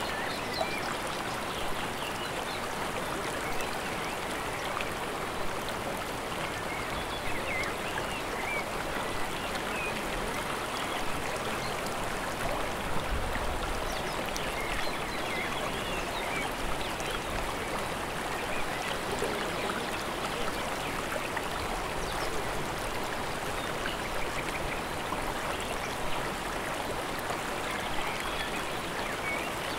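Steady rush of a mountain stream's running water, with faint short high chirps here and there.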